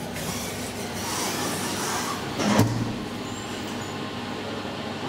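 Inside a new SMW traction elevator car: a steady running hiss that swells briefly, then a single clunk about two and a half seconds in, followed by a few faint high beeps.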